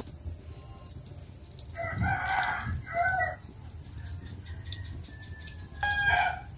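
Rooster crowing: a longer call about two seconds in, a shorter one right after, and another brief call near the end.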